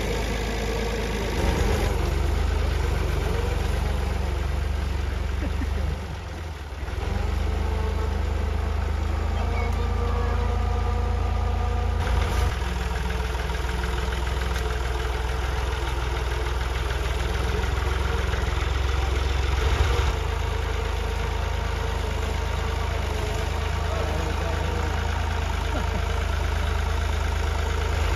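Massey Ferguson 260 tractor's three-cylinder diesel engine running steadily under load while it pulls a spring-tine cultivator through ploughed soil. The sound dips briefly about six seconds in, and its level shifts abruptly a few times.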